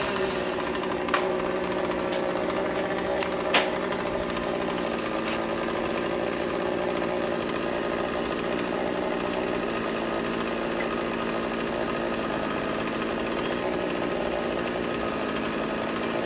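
Chainsaw engine running steadily without revving. Two short sharp knocks come about one second and three and a half seconds in.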